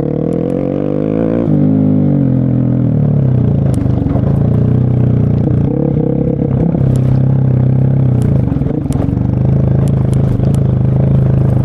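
Vehicle engine running under load on a rough dirt track. Its pitch climbs over the first second and a half, then drops as it shifts and holds steady, with scattered clicks and rattles from stones and the body.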